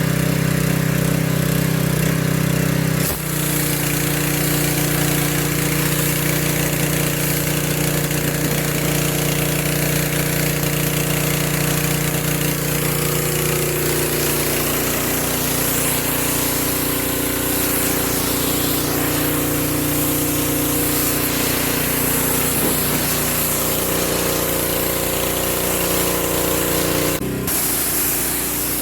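Gas pressure washer engine running steadily under load while the wand sprays a strong jet of water, rinsing foam off a vehicle. The engine note shifts a little about three seconds in, and the spray breaks off briefly near the end.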